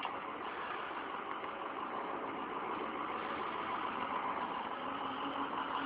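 Pickup truck engine running steadily at low speed while the truck slowly tows a boat on its trailer.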